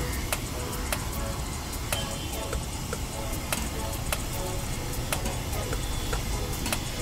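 Long knife scraping and slicing chicken off a vertical shawarma spit, with irregular sharp clicks of the blade, over a steady low background rumble.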